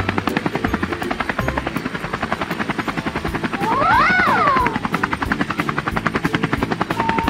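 Cartoon helicopter sound effect: a rapid, steady rotor chop, with a whistle-like glide that rises and falls about four seconds in.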